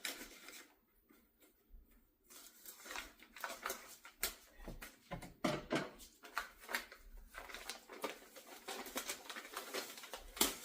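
Plastic wrapping crinkling and rustling as it is pulled off a furnace filter: quick, irregular crackles with a short lull about a second in.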